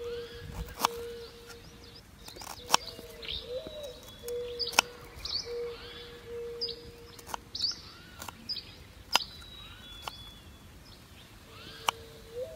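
Kitchen knife cutting through pieces of root onto a wooden chopping board: about six sharp knocks, a couple of seconds apart. Birds chirp throughout, with a low steady whistling call that comes and goes.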